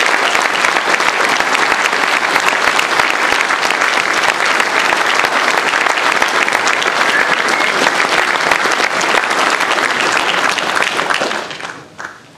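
A roomful of people applauding steadily, the clapping dying away near the end.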